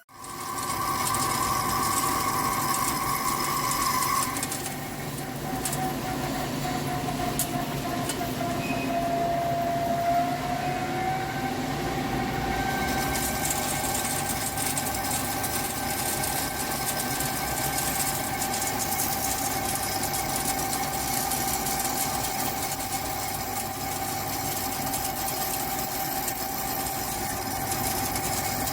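Hankook PROTEC-9NC heavy CNC lathe running while turning a forged shaft: a steady whine from the spindle drive over even cutting noise, the pitch sagging slightly about 7 seconds in and rising back about 11 seconds in as the spindle speed changes.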